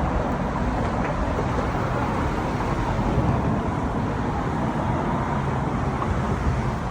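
Steady rumble of a vehicle on the move: engine and road noise with no distinct events.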